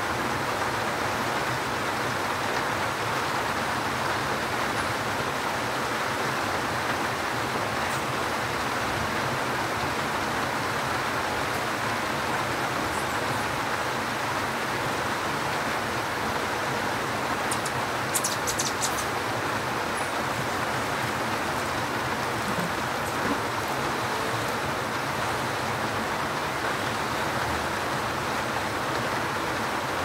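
Steady rain falling, an even hiss with no let-up. About two-thirds of the way in comes a short cluster of sharp, high ticks.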